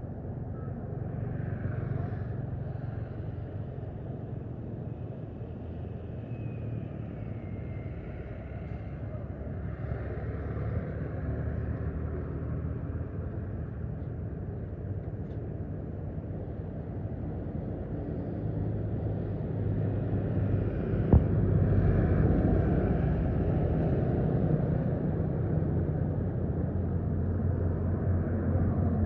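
Motor vehicle engine running with a steady low rumble, growing louder about two-thirds of the way through, with a single sharp click partway along.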